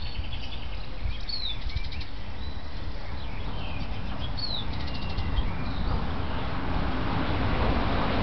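Small birds chirping and singing in short, high calls, several in the first half, over a steady low rumble that gets louder near the end.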